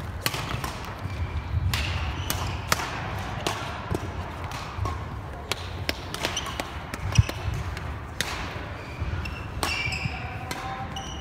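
Badminton play in a large, echoing sports hall: sharp racket hits on the shuttlecock, sneakers squeaking and thudding on the wooden court, with the loudest hit about seven seconds in.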